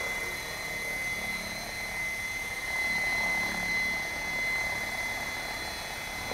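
Electric Assault 700 RC helicopter hovering at a low head speed: a steady rotor whir with a constant high-pitched whine, swelling slightly about halfway through.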